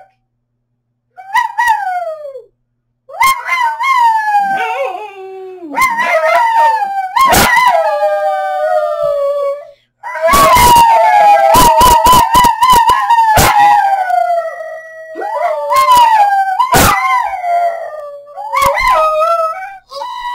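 Howling: a run of long calls, each sliding down in pitch and some wavering, from a person howling to set off a small white dog and the dog howling along. At the loudest howls there is crackling distortion.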